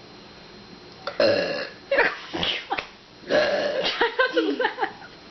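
A young man belching on purpose: a run of short, loud burps from about a second in, then a longer drawn-out one with a wavering pitch near the end.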